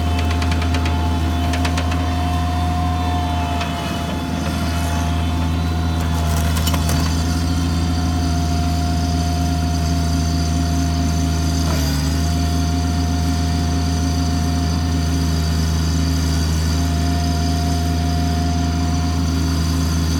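Bobcat MT52 walk-behind compact track loader's engine running steadily under work, with a steady whine over it. The level dips briefly about four seconds in.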